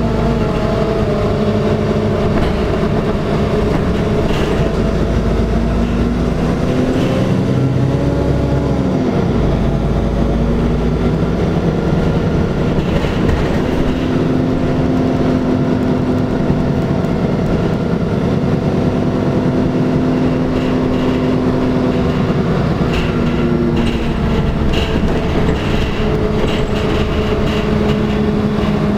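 Interior of a NefAZ-5299 city bus under way: the engine and drivetrain run with a steady low rumble and hum. The pitch dips and comes back up about eight seconds in, with road noise and light rattles throughout.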